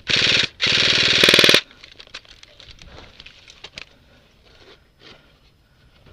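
Airsoft rifle firing full-auto near the microphone: two quick bursts of rapid, even clicks in the first second and a half, the last about a second long. Then only faint scattered pops and clicks.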